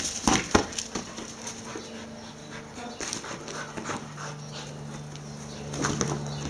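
Two kelpies panting and scuffling as they chase a ball, with a few sharp knocks in the first second. A faint steady low hum sits underneath from about two seconds in.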